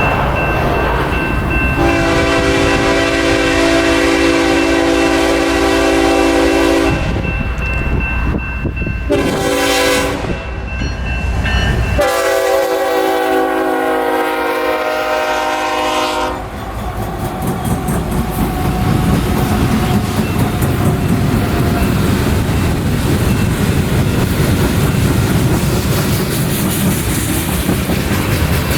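BNSF freight train's air horn sounding long chord blasts, one ending about seven seconds in and another from about twelve to sixteen seconds in. After that the train keeps rolling past with steady rumble and wheel noise on the rails.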